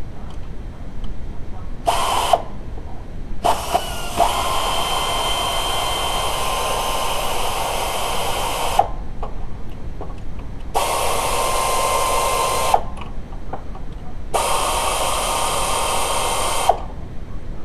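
A power tool motor running in four bursts: a short one about two seconds in, a long one of about five seconds, then two of about two seconds each. Each burst holds a steady whine and starts and stops sharply.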